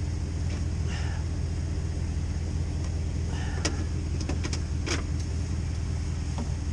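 Pickup truck engine idling steadily, with a few sharp clicks and knocks about halfway through.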